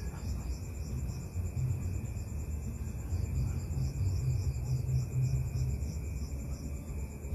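Crickets chirping: a steady high trill with a rhythmic pulsing chirp, over a constant low rumble.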